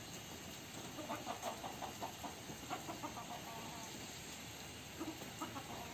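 Gamecock chickens clucking in quick runs of short notes, starting about a second in and coming again near the end.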